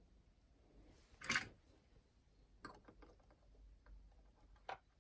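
Light plastic clicks and clatter of a clock radio/cassette player being handled and taken apart: one louder clack about a second in, then a few small clicks and a sharp tick near the end.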